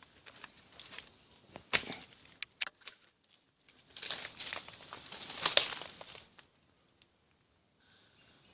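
Dry leaves and brush rustling and crackling underfoot and against the body, with sharp snaps of twigs, as someone pushes through jungle undergrowth; the rustling grows loudest about halfway through, then dies away.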